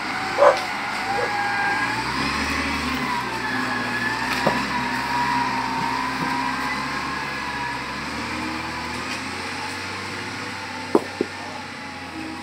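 Diesel engine of a front-end wheel loader running as the machine drives along, with a wavering whine over the engine hum that slowly fades toward the end. Two short sharp knocks near the end.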